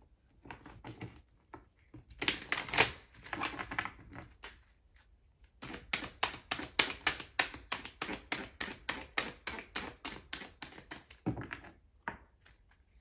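A deck of oracle cards shuffled by hand: a few rustling bursts about two seconds in, then a long run of quick, sharp card slaps, about six a second, that stops a little before the end.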